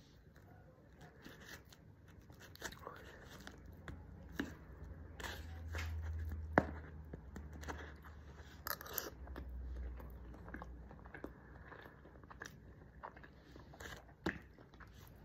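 Close-up eating sounds: chewing and biting mouthfuls of mashed plantain (mangú) and fried salami, with scattered sharp clicks of a metal spoon, the sharpest about six and a half seconds in and again near the end.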